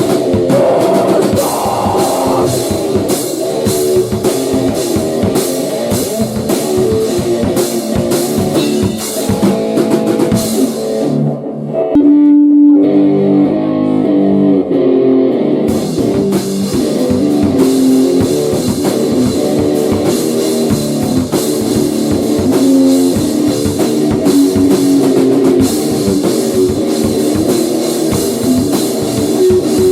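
Grunge/hardcore rock band playing guitar and drum kit, the drums hitting fast cymbal strokes. About eleven seconds in the drumming stops. A guitar then starts a new song alone, and the drums come back in about three seconds later.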